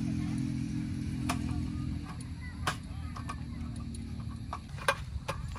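Sharp clicks and clacks of a folding metal camp table's frame and mesh top being handled and set in place, about five times, over a low steady hum that stops about four and a half seconds in.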